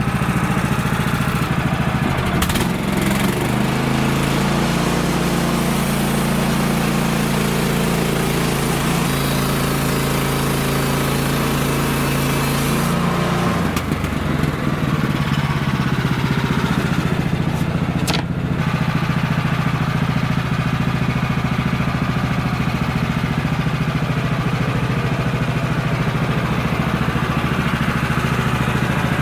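Small gasoline engine of a Woodland Mills HM-126 bandsaw mill running. It speeds up about a second and a half in, is held there for about eleven seconds as the mill is throttled up for a light trial cut, then drops back to a lower steady run.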